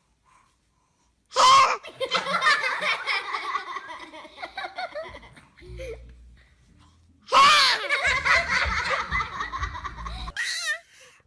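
A baby sneezes, and a few seconds of laughter follow. About six seconds later comes another sneeze with more laughter.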